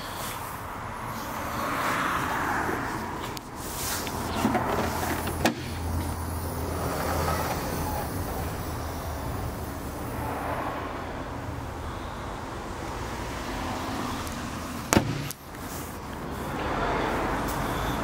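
Audi RS5's 4.2-litre V8 idling steadily with a low hum. Two sharp knocks come through, one about a third of the way in and one near the end.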